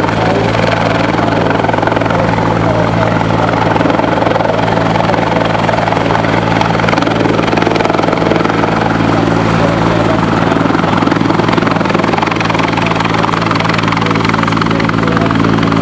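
Search-and-rescue helicopter hovering low, its rotor and turbine engine running with a loud, steady drone.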